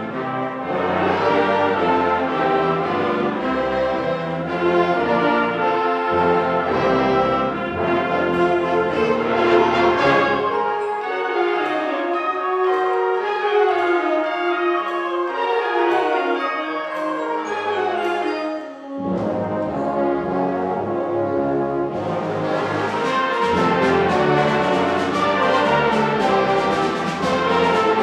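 Concert wind band of woodwinds and brass playing a Christmas arrangement. About a third of the way in the low brass drops out and the upper winds carry on more lightly. The full band comes back in about two-thirds through, turning brighter a few seconds later.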